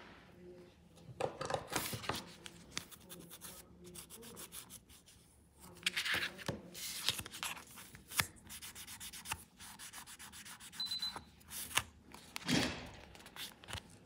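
Several short bouts of rubbing and scraping as a clear plastic nail-stamping scraper card is wiped clean with a napkin, cleaning it before the next layer of stamping polish.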